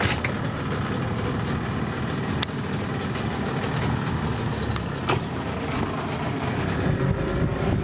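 Boat engine running steadily, with a few faint clicks over it.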